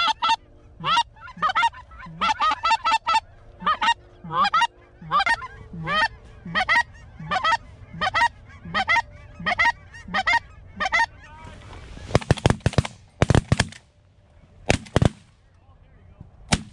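Rapid, loud goose honking, short repeated calls for about eleven seconds, then suppressed 12-gauge shotgun fire: a quick cluster of shots about twelve seconds in, two more shots over the next few seconds, and a last shot near the end.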